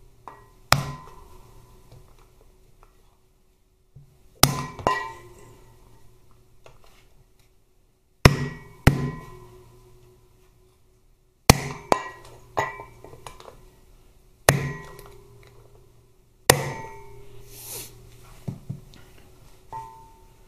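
A hammer striking a drift to knock the oil seal out of a Harley-Davidson Twin Cam 88's aluminium left crankcase half. About a dozen sharp blows, single or in quick pairs every few seconds, each followed by a brief metallic ring.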